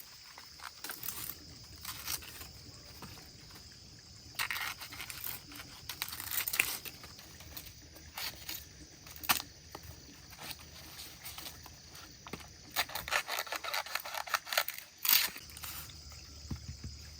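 Irregular rustling, scraping and tearing handling sounds with scattered sharp clicks and snaps, coming in bursts about 4 to 5 seconds in, around 6 seconds in, and again from about 13 to 15 seconds in.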